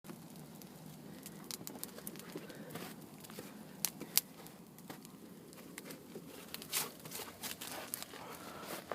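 Wood campfire crackling, with irregular sharp pops over a low steady hiss; two loud pops come about four seconds in and a quick run of them near seven seconds.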